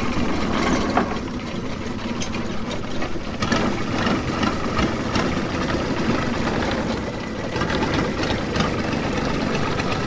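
Long-tail boat's inboard engine running steadily at low speed, its long-shaft propeller churning the water as the boat moves off.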